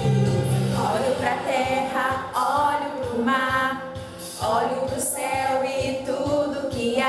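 Music: a song with a sung voice over a steady beat.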